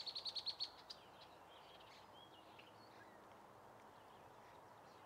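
A songbird's rapid high trill, about a dozen notes a second, ending about a second in, followed by a few faint scattered chirps over quiet outdoor background noise.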